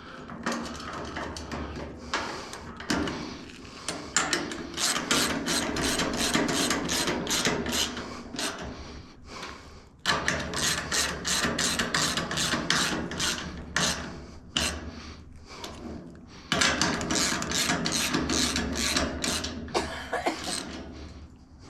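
Ratchet wrench tightening nuts and bolts, with repeated rasping strokes about three to four a second in several runs and short pauses between them.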